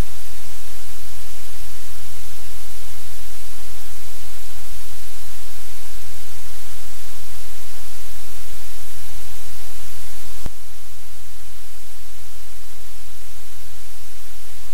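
Loud steady hiss and static with a low electrical hum underneath: the noise floor of a live camera's audio feed. A single click comes about ten seconds in, after which the hiss drops slightly.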